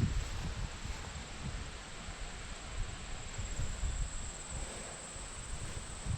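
Crickets trilling steadily in a high-pitched chorus, over a low, uneven rumble.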